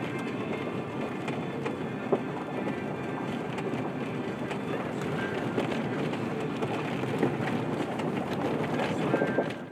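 Truck driving along a gravel road, heard from inside the cab: a steady rumble of tyres on gravel with scattered small clicks and rattles. It cuts off abruptly near the end.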